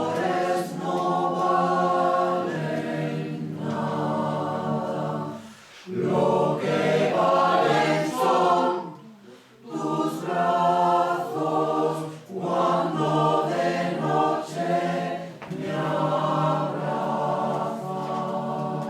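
A group of voices singing together without accompaniment, choir-style, in long phrases with short pauses for breath.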